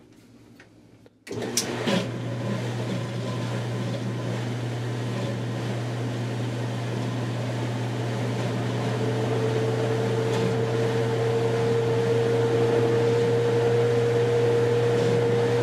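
Maytag Performa top-load washer spinning its empty basket on a test spin after a hub seal and bearing replacement: the motor starts suddenly about a second in with a steady low hum, growing gradually louder as the basket speeds up, and a steady whine joins around halfway.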